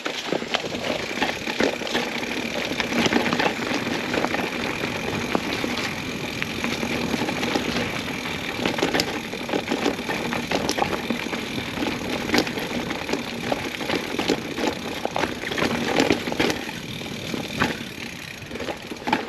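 Full-suspension mountain bike riding fast over rough trail: tyres rumbling over rock and gravel, with constant rattling and frequent sharp clicks and knocks from the chain and frame.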